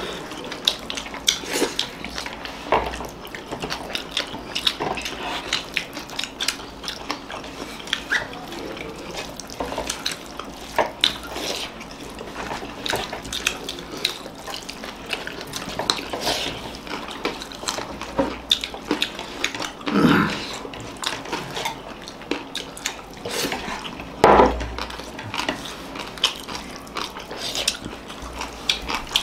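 People eating rice and egg curry with their hands: wet mixing and mouth sounds, with many short clicks and taps on the plates. A louder short sound comes about twenty seconds in and another about twenty-four seconds in.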